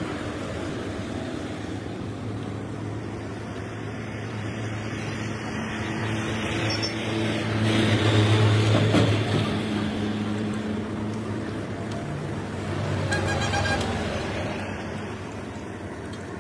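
Road traffic passing with a steady engine hum, one vehicle loudest about halfway through, over the hiss of battered tomato slices deep-frying in a kadai of hot oil. A short metallic ring sounds near the end.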